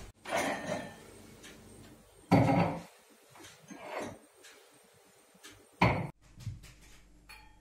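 Kitchen cupboard and glassware being handled: four separate knocks and clatters, the loudest about two and a half seconds in and another just before six seconds.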